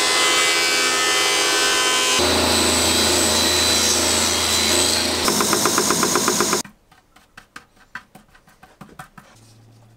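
Woodworking jointer-planer running loudly, its cutterhead planing an oak strip fed along the fence. About two-thirds of the way through the sound cuts off suddenly, leaving only faint clicks and taps.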